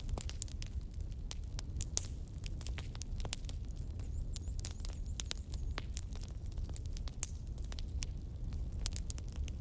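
Irregular crackling and popping, several sharp clicks a second, over a steady low rumble.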